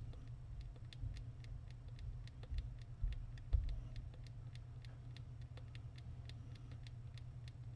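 Faint, uneven clicking several times a second over a steady low hum, with a few soft low thumps around the middle.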